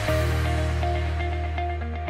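Electronic background music: a held bass note under a sustained chord, slowly getting quieter.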